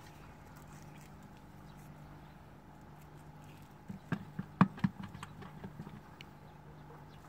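Cast net being hauled in over pavement, its lead sinkers clicking and scraping in a quick irregular run of short knocks about four seconds in, over a faint steady low hum.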